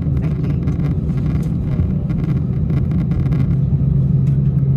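Airbus A319's CFM56 turbofan engine running at taxi power, heard inside the cabin from a window seat beside it: a steady low hum over a rumble, with scattered rattling clicks during the first few seconds. The hum grows a little stronger near the end.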